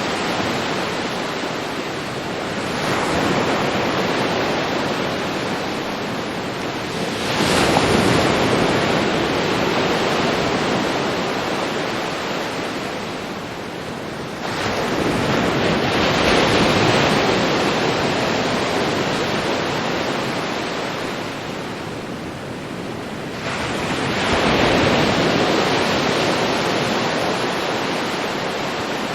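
Ocean surf: waves breaking and washing up the beach in repeated swells, each rising quickly and then fading slowly. Four waves come in, several seconds apart.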